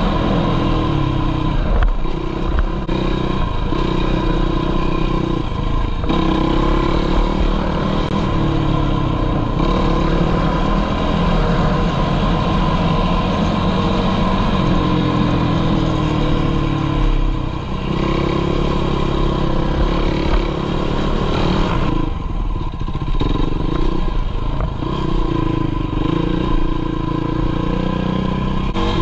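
Sport quad ATV engine running hard under throttle, its revs rising and falling as it rides. Several times the engine sound dips briefly, then picks up again.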